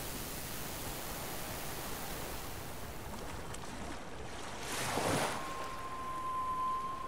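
Ocean surf washing steadily, swelling into a louder wave about five seconds in. Just after it a single steady high tone begins and holds.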